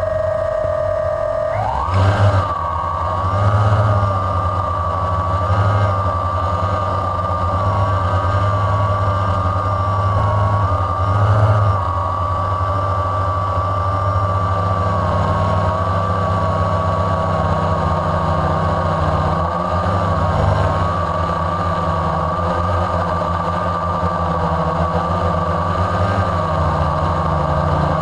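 Radio-controlled model aircraft engine heard close up, revving up about two seconds in and then running steadily at high power with slight wavers in pitch, through the takeoff and climb.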